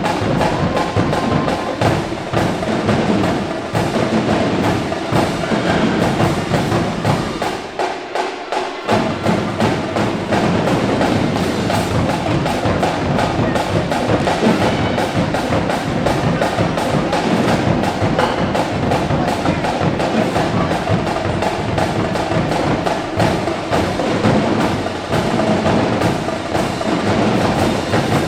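Marching drumline playing a fast, dense drum cadence. The bass drums drop out for about a second roughly eight seconds in, then come back.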